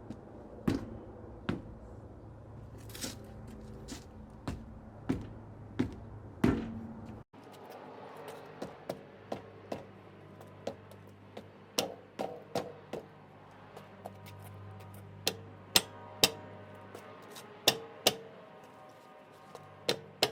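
Irregular knocks and thuds as a car wheel is kicked to free a rim stuck on the wheel hub. The knocks come at uneven intervals, with a momentary break about a third of the way through.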